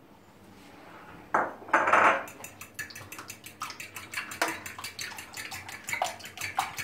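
A couple of short clatters, then eggs being beaten briskly by hand in a glass bowl, the utensil clicking against the glass about six times a second.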